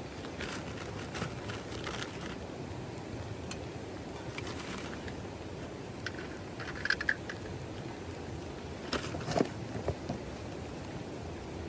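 Steady rain noise with scattered light taps and clicks, a small cluster about seven seconds in and another about nine seconds in.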